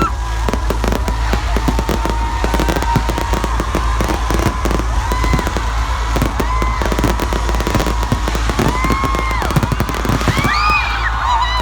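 Aerial fireworks display: a dense, rapid crackle of many bursts over a continuous deep rumble, which stops suddenly at the end.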